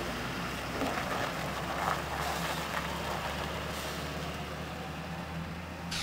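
Farm tractor's diesel engine running steadily under load as it pulls a loaded earth-moving dump trailer away.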